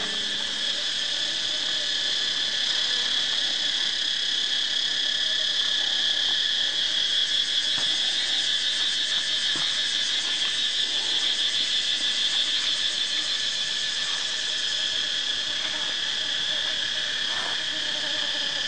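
Steady chorus of insects, a continuous shrill high-pitched drone with a weaker, lower band beneath it, and a few faint ticks here and there.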